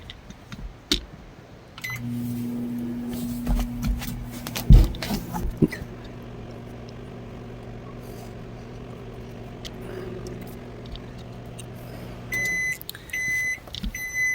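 Microwave oven running with a steady hum for about ten seconds, a fork inside it not sparking, with a few clicks and a knock near the start, then three short beeps as the cycle ends.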